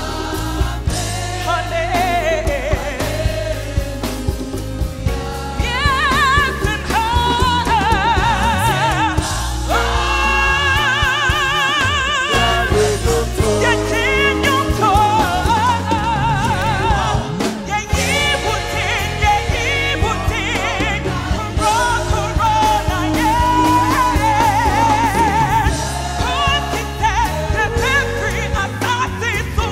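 Live gospel music: a singer holds long notes with a wide vibrato over a band with a steady bass line.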